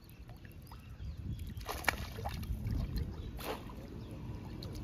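Water sloshing around a person wading waist-deep in a pond, with a few sharper splashes about two seconds in and again about three and a half seconds in.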